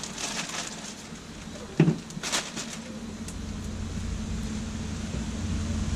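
Plastic Ziploc bag rustling as tofu pieces are handled in seasoned flour, with a single knock about two seconds in. From about halfway a low rumble comes in and grows steadily louder.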